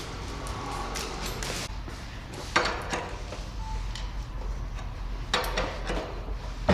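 Scattered light clinks and small knocks of hand tools and metal parts as a new motorcycle's mirrors and handlebar parts are fitted, with sharper clicks about two and a half and five and a half seconds in and a louder knock near the end.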